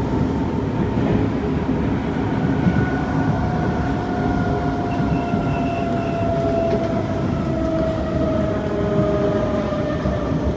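Kawasaki C151 MRT train heard from inside the car: a steady rumble of wheels and running gear, with a thin traction-motor whine slowly falling in pitch as the train slows.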